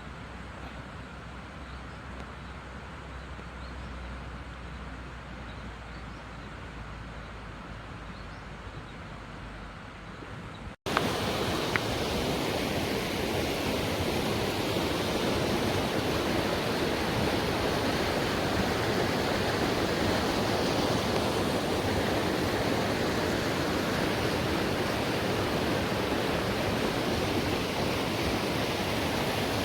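Quiet outdoor ambience with a low hum, then, after an abrupt cut about eleven seconds in, a loud, steady rush of flowing water.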